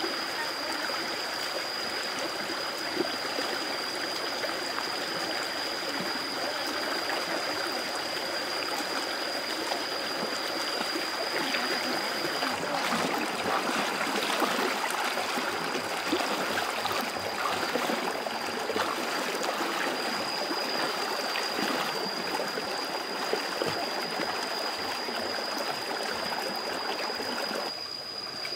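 Shallow rocky stream running steadily over stones, with a few small splashes from wading feet about halfway through. A thin, steady high-pitched tone sounds over the water throughout.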